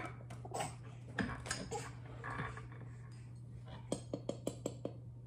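Utensils and dishes clinking while mixing muffin batter in a bowl: scattered knocks, then a quick run of about six sharp taps about four seconds in.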